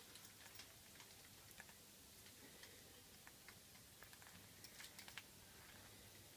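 Faint, irregular clicks and taps of an African grey parrot's beak working at a steel bolt and nut, with a quick run of taps about five seconds in.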